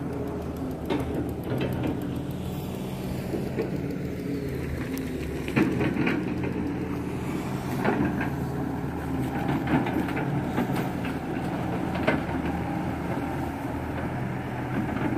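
Kato crawler excavator's diesel engine running steadily while it digs mud from a shrimp pond and builds up the bank, with a few sharp knocks from the bucket and arm working.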